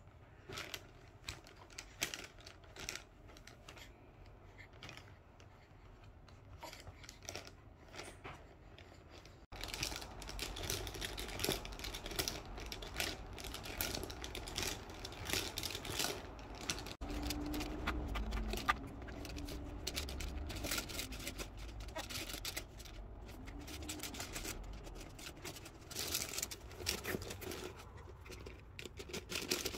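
Irregular small clicks, taps and rustling, like handling noise, getting louder about a third of the way in, with a faint wavering voice-like sound for a few seconds past the middle.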